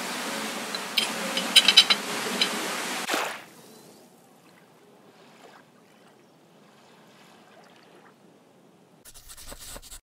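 A metal spoon clinks several times against a ceramic bowl over a steady hiss of outdoor ambience. About three seconds in this cuts off to the faint sound of small waves lapping on a sandy shore, and in the last second there is a short burst of sound.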